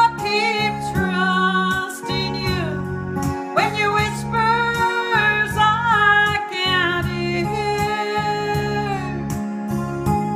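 A woman singing a song into a microphone over instrumental accompaniment, with sliding and long held notes.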